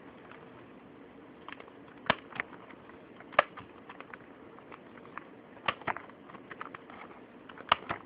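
Close handling noise: sharp clicks and taps from hands working newspaper against a fingernail near the microphone. They come in irregular pairs, with the loudest about three and a half seconds in and near the end, over a steady low hum.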